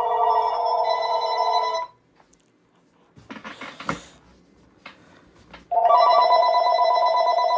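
A telephone's electronic ringer rings an incoming call: two rings of about two seconds each, with a pause of about four seconds between them.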